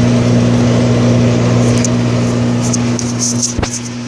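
Microwave oven running with a steady electrical hum and fan noise. There are a few faint high ticks in the second half and one sharp click near the end.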